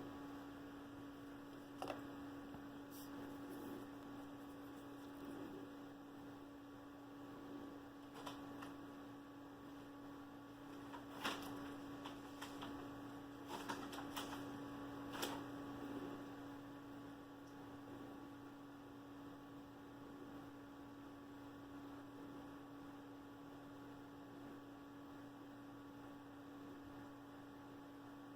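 Steady electrical hum with a few scattered light clicks.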